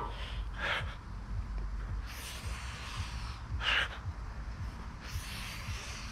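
A man breathing hard, about four heavy breaths spaced a second or two apart, winded from high-rep pull-ups.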